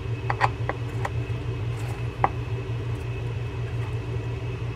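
Steady low hum of room machinery, like a fan, with a few light clicks of small metal fishing-reel parts being handled, mostly in the first second and once about two seconds in.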